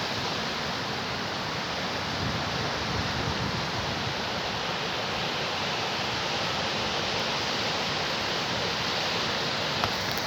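Sea surf washing onto a beach: a steady, unbroken rush of waves, with one brief click near the end.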